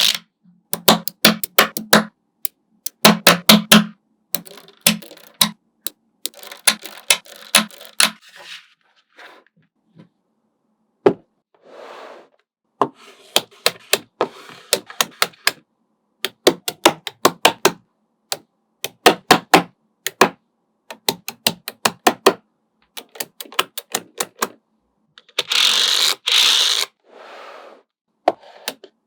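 Small magnetic balls clicking as they snap together. The clicks come in quick runs with short pauses between, and a few longer stretches where many balls rattle together at once.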